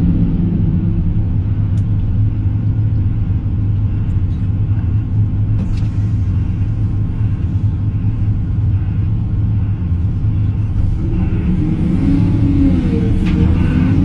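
Excavator's diesel engine running steadily with a low drone. From about eleven seconds in, a wavering whine rises and falls over it, with a few faint clicks.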